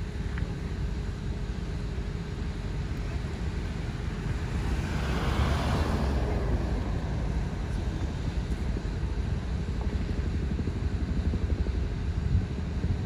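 Steady low rumble of a motor vehicle or road traffic. A vehicle passes by about five seconds in, swelling and then falling away with a dropping pitch.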